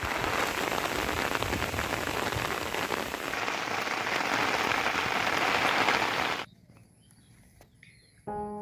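Steady rain falling, dense patter with no let-up, which cuts off abruptly about six seconds in; near silence follows, and music starts just before the end.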